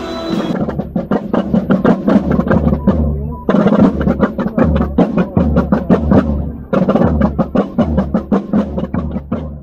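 Military side drums beating rapid strokes in three phrases, with short breaks about three seconds and six and a half seconds in.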